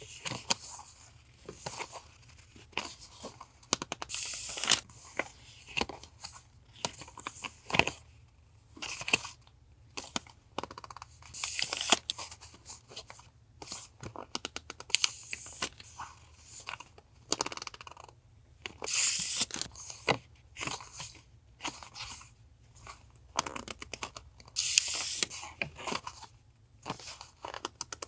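Paper stationery and its plastic packaging being handled and unwrapped: bursts of rustling and crinkling, with small taps and clicks as pieces are picked up and set down.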